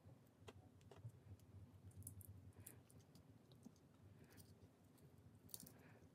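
Faint, scattered clicks of the tools of a Victorinox Climber Swiss army knife being opened and closed by hand.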